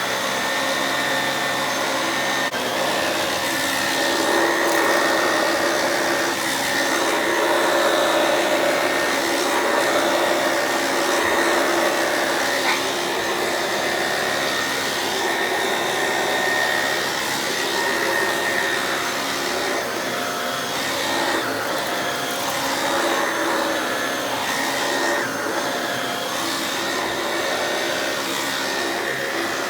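Shark DuoClean True Pet corded stick vacuum running on its carpet setting, its motorised pet-hair head working a carpet. A steady motor hum with a high whine, swelling and easing a little as the head is pushed back and forth.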